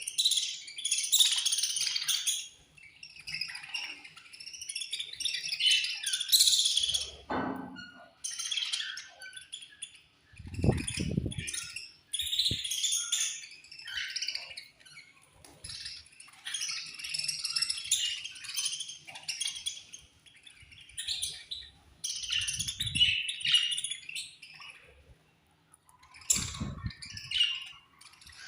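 A colony of budgerigars chirping and chattering together in repeated bursts with short pauses. A few brief low thuds sound in between.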